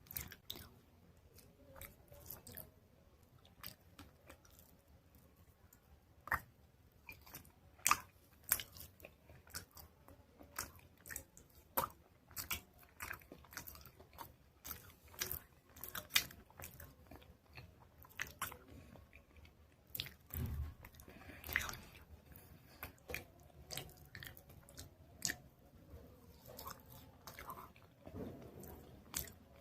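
Close-up crunching of dried chalk paste being bitten and chewed: irregular sharp crackles several times a second, a few louder snaps among them.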